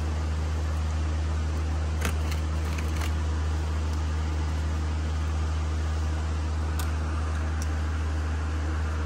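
Steady low mechanical hum, with a few light clicks and taps of a brake pad being worked into its caliper bracket, a cluster about two to three seconds in and a couple more near seven seconds.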